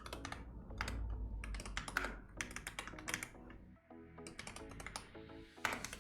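Typing on a computer keyboard: irregular runs of quick keystroke clicks, over soft background music.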